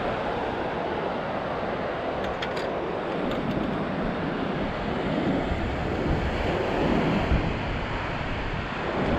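Ocean surf washing steadily on the beach, with wind gusting against the microphone and rumbling more strongly in the second half.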